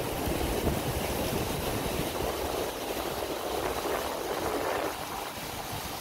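Mountain stream rushing in whitewater over granite boulders: a steady, even rush of water. Some wind rumble on the microphone in roughly the first second.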